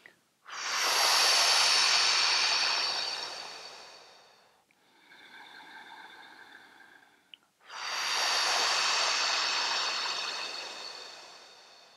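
A woman's yoga clearing breaths, close to a clip-on microphone: two long exhales blown out through pursed lips, each about four seconds and fading away, with a quieter inhale through the nose between them.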